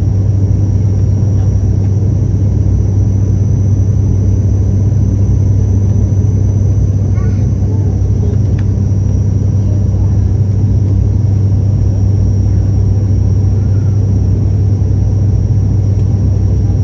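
Cabin drone of an ATR 72-500 turboprop heard from a seat beside the propeller: a loud, steady low hum from the Pratt & Whitney PW127 engine and its six-bladed propeller, with a thin, steady high whine above it.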